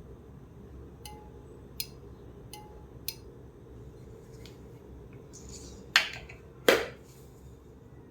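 Parts of a dismantled steam iron being handled: a few light clicks, then two loud sharp clacks less than a second apart near the end.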